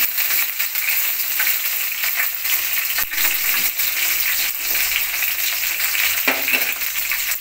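Garlic, curry leaves and coriander leaves sizzling in hot sesame oil in a steel pan: a steady sizzle with a few sharp pops from mustard seeds crackling in the tempering.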